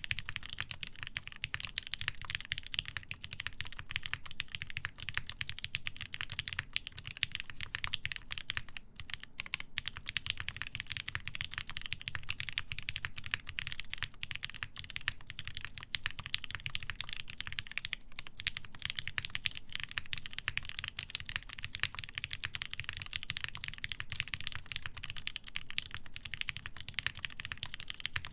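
Continuous typing on a TGR Jane v2 custom mechanical keyboard with lubed Alpaca v1 linear switches, a half polycarbonate plate and GMK keycaps: a rapid, steady stream of key clacks with brief lulls about a third and two-thirds of the way through.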